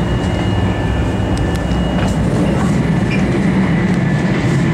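A 500 Series Shinkansen running at speed, heard from inside the car: a steady, loud rumble of running noise with a faint high whine over it.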